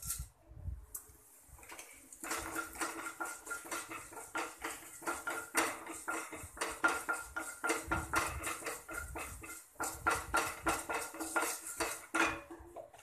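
Wooden spatula stirring and scraping urad dal around a kadhai, a rapid run of scrapes and light knocks starting about two seconds in.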